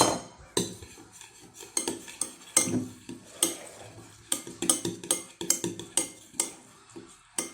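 A utensil stirring slime (white glue with a little activator) in a bowl, with irregular clinks and scrapes against the bowl.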